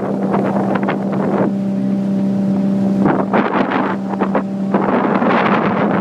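Motorboat engine running at a steady, even pitch, with wind buffeting the microphone. The wind falls away from about a second and a half in to nearly five seconds in, and there the engine's hum comes through plainly before the wind rushes back.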